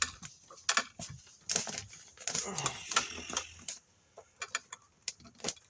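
Handling noise from electrical work in a wall cavity: scattered clicks and rustling, with denser scraping midway, as wiring and insulation are pulled and pushed into place. There is a brief low vocal sound about two and a half seconds in.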